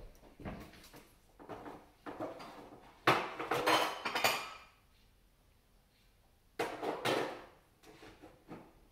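Irregular clattering and rattling of hard objects, like dishes or a bowl, in several bursts. The loudest comes about three seconds in and another around seven seconds.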